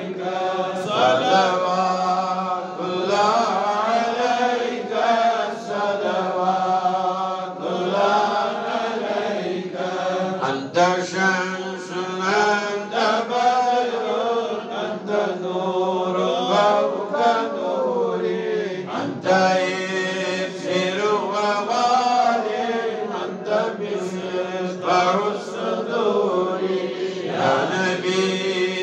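A man's voice chanting an Islamic religious recitation through a microphone, in long melodic phrases that rise and fall and are held rather than spoken. A steady low hum runs underneath.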